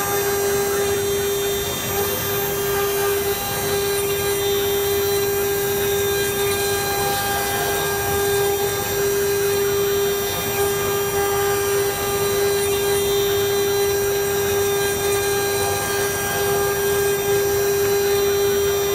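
CNC router spindle running with a steady whine while a fine engraving bit carves into a wooden spindle, with the noise of the bit cutting the wood.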